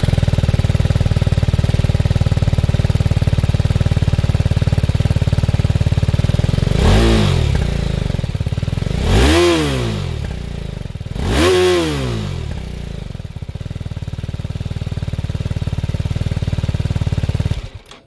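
BMW G310R's single-cylinder engine running steadily, then revving up and back down three times, about two seconds apart, before settling into a steady run that slowly grows louder.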